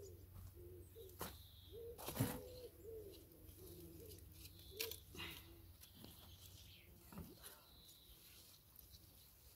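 A dove cooing over and over, soft low hoots, each held and then falling away at the end. There are a few sharp clicks among the coos, the loudest about two seconds in.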